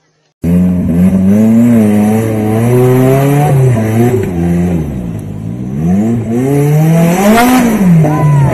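Off-road competition buggy's engine revving hard under load on a steep mud climb, starting abruptly about half a second in. The pitch rises and falls repeatedly, surging to its highest about seven seconds in and then dropping.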